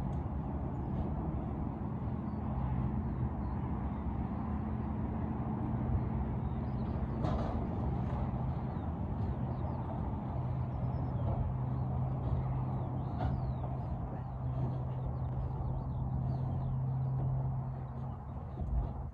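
A steady low engine hum that fades near the end, with faint bird chirps over it.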